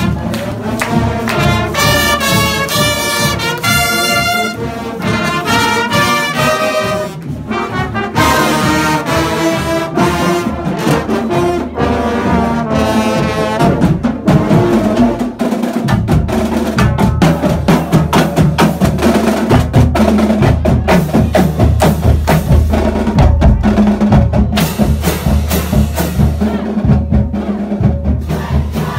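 Marching band playing: sousaphones, trumpets and other brass carry a tune over percussion. From about halfway through, the low pulsing beat grows stronger and the melody is less prominent.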